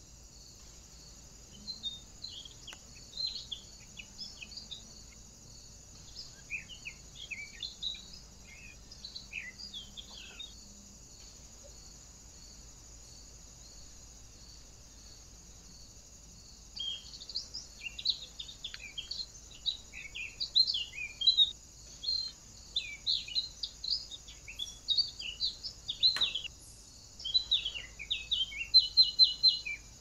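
Wild songbirds singing: bouts of short, quick high chirps and trills, fading out partway through and returning louder for the second half. A steady faint high hiss runs underneath.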